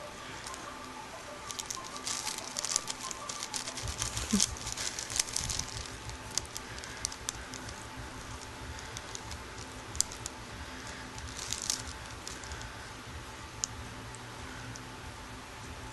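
Plastic shopping bag crinkling and crackling in scattered bursts as a cat shifts on it and rubs against a hand, busiest in the first six seconds and again briefly near ten and twelve seconds. A low steady rumble sets in about four seconds in.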